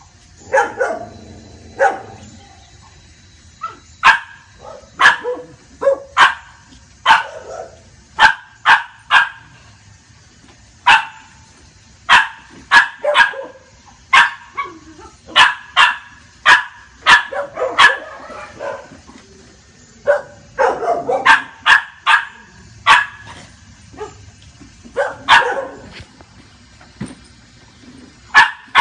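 Dog barking over and over: dozens of short, sharp barks, often two to four in quick succession, with brief pauses between the runs.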